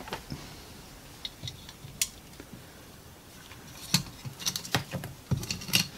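Scattered small clicks, taps and clinks of metal parts and tools being handled while a replacement motor is fitted into a cassette deck chassis. They come sparsely at first and grow busier about four seconds in.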